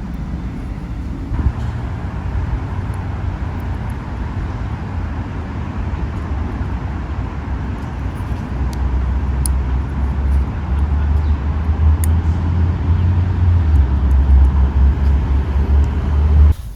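Steady low rumble with a noisy hiss above it, like road noise or wind. It grows louder about halfway through.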